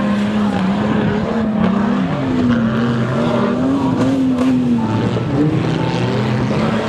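Jeep Cherokee engine racing on a dirt course, revving up and falling back again and again as the driver works the throttle through the turns.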